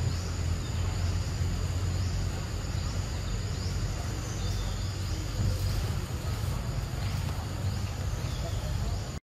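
Forest insects droning steadily on a high note, with short falling chirps repeating about once a second, over a low rumble.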